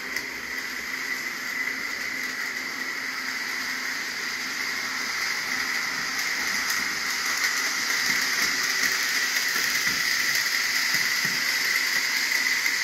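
HO-scale model train locomotive running in reverse on its track, its small electric motor and gears giving a steady whine. The whine grows louder through the second half as the locomotive is brought up toward full speed in reverse.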